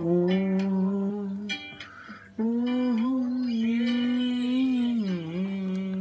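A man's voice singing a wordless melody in long held notes, in two phrases with a short gap between, the second dipping in pitch near its end.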